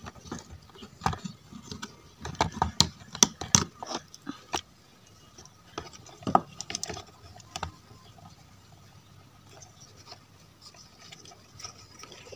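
Clicks, light knocks and scrapes of hands working an active speaker's amplifier board: wire connectors pulled and pushed and the plastic case handled. There is a dense run of clicks over the first few seconds, a few more around six to seven seconds, then it goes mostly quiet.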